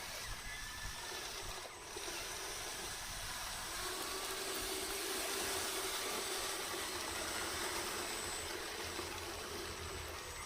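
Radio-controlled model bulldozer running, its electric drive motors and gearbox giving a steady high-pitched whine and grinding, with a low hum joining about four seconds in.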